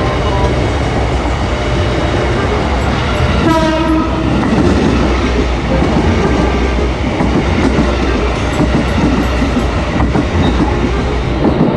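A large vehicle passing close by with a heavy, steady rumble, and one short horn blast about three and a half seconds in.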